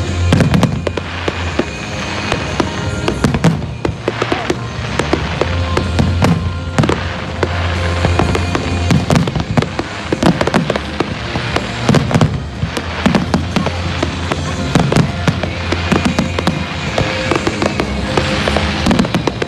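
Aerial firework shells bursting in rapid, overlapping succession, with many sharp bangs and crackles.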